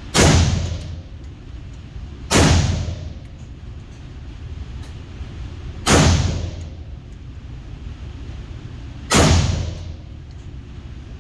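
Smith & Wesson M&P15 AR-15 rifle firing four single shots at uneven intervals, each a sharp crack with a short echoing tail.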